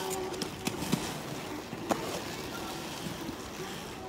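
Inline skate wheels rolling on asphalt: a steady rushing noise with a few sharp clicks from the skates.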